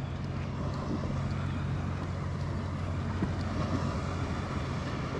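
Wind rushing over the microphone with choppy sea water washing around a small kayak: a steady rushing noise over a constant low rumble.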